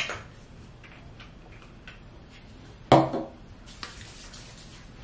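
Clicks and taps from handling a plastic pump bottle of snail mucin essence, with a sharper knock about three seconds in. Near the end comes a soft rubbing hiss of hands spreading the essence between the palms.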